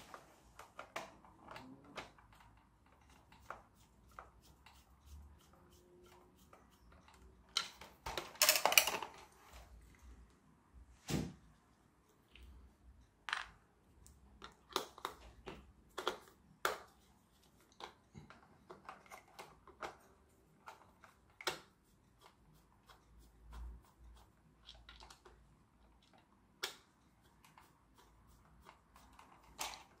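Scattered small clicks and taps of plastic parts and screws being handled while a radio-controlled toy tractor is put back together, with a louder rattling clatter about eight seconds in.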